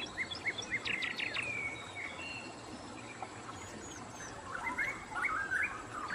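Small birds chirping and twittering, many short quick chirps with a few gliding whistles, thinning out in the middle and picking up again near the end.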